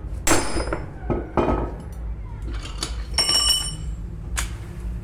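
Metal parts and tools knocking and clinking: a few sharp knocks, then a ringing metallic clink about three seconds in, over a steady low hum.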